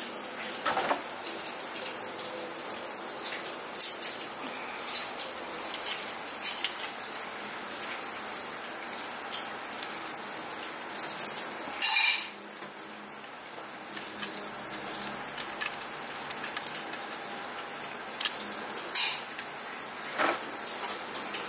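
Pistons and a steel piston ring compressor tool clinking and clattering as they are handled in a box, with a louder clatter about halfway through, over a steady hiss.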